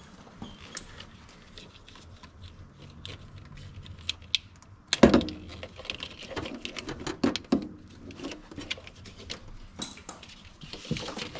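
A wiring harness in plastic split loom and its plastic connectors being handled: a run of light clicks and rattles, with a louder knock about five seconds in and a busier stretch of clicks after it.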